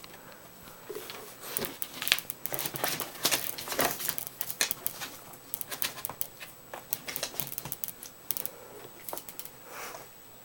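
Dog scrabbling at aquarium glass: irregular quick clicks and scratches of claws on glass, coming in flurries.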